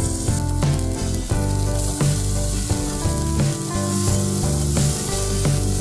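Butter and chopped red onions sizzling in a steel saucepan as they are stirred with a spoon, sautéing. Background guitar music plays along with it.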